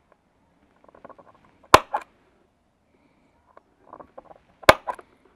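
A centre punch striking the sheet-metal A-pillar twice, about three seconds apart, to mark drill holes for a snorkel bracket. Each strike is a sharp snap followed by a smaller one, with faint scraping just before as the punch is set on the taped mark.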